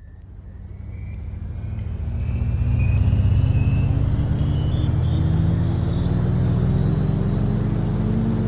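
A low rumbling drone on the soundtrack that fades in over the first three seconds and then holds, slowly rising in pitch, with a faint higher whine climbing alongside it.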